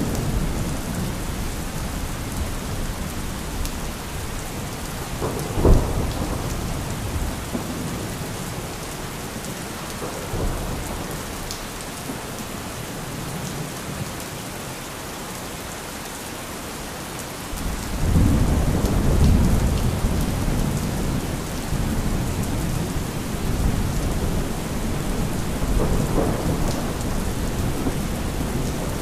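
Thunderstorm: steady rain with thunder. There is a sharp crack about six seconds in, then a long, low rumble of thunder that begins a little past the middle and rolls on for several seconds.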